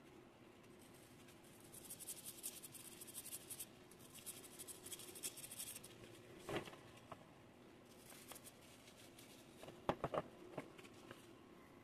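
An aluminium plug being sanded by hand with a small abrasive block: quick, scratchy rubbing strokes for a few seconds. Then come a few light knocks of the metal part against the wooden tabletop, the loudest near the end.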